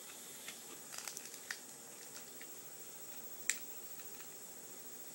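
Faint clicks of a plastic toy action figure's jointed parts being worked by hand as its arms are popped out: a little cluster of clicks about a second in and one sharper click about three and a half seconds in.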